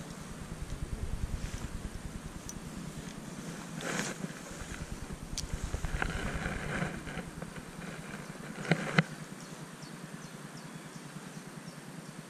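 Spinning rod and reel handled through a cast, with scattered light ticks and rustles, then two sharp clicks about nine seconds in, the loudest sounds, over a low steady rumble.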